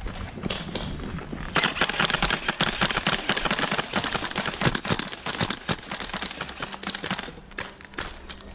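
Airsoft guns firing in rapid, irregular bursts of sharp clicks, starting about a second and a half in and dying down near the end.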